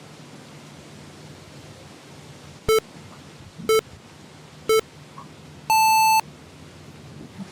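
FPV lap timer's race-start countdown: three short low beeps a second apart, then one longer, higher beep signalling the start. A steady low hum runs underneath.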